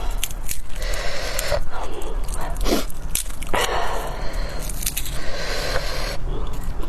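A person eating close to the microphone: wet chewing noises with small clicks, in irregular bursts.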